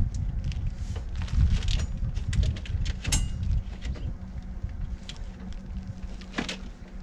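Irregular clicks, knocks and scraping over a low rumble as a thick brake cable is worked by hand through the frame of a side-by-side. A faint steady hum comes in about halfway through.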